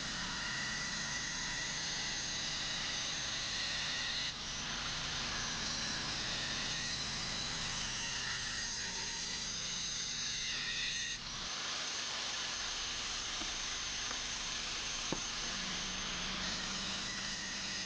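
Flux-core MIG welding arc hissing steadily, with two short breaks in the arc about four and eleven seconds in.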